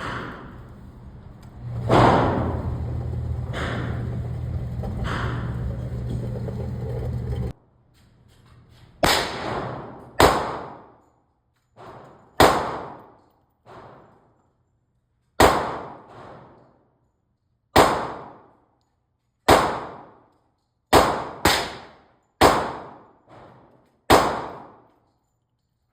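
A series of sharp gunshots, each ringing out briefly, mostly one every one to two seconds, with two in quick succession near the end. In the first few seconds, shots sound over a steady noisy hum that cuts off suddenly.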